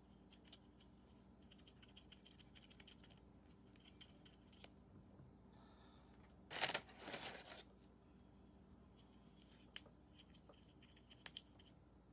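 Faint scratching and small clicks of a wooden cotton swab wiping inside a Glock 48's steel slide while the slide is handled, with one brief louder rustle a little past halfway.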